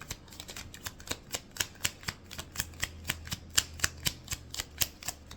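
A deck of oracle cards being shuffled by hand: a quick run of crisp card clicks, about five or six a second, over a faint low hum.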